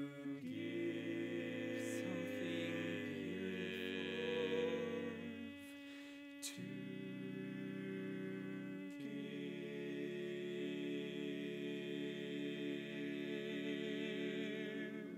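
Barbershop quartet of four men's voices singing a cappella, holding long sustained chords that change a few times, thinning briefly about six seconds in. It is the song's closing tag, ending on a long held chord that stops right at the end.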